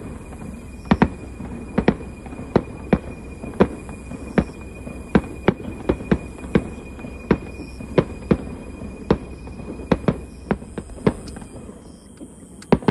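Fireworks display shells bursting: a steady run of sharp bangs, about one to two a second, with a short lull near the end before two bangs close together.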